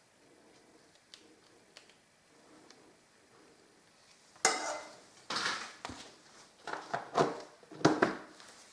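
A clear plastic food-storage tub being handled and its plastic lid fitted and pressed on, giving a run of loud clattering knocks and scrapes through the second half. A few faint ticks of a spatula come before them.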